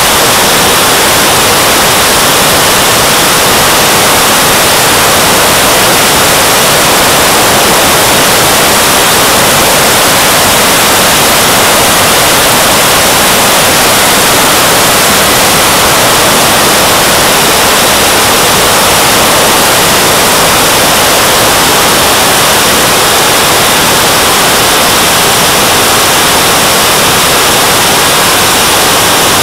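Model jet turbine in flight, picked up by a camera mounted right behind the engine: the turbine and the rushing air merge into one loud, steady hiss with no distinct engine tone or change in pitch.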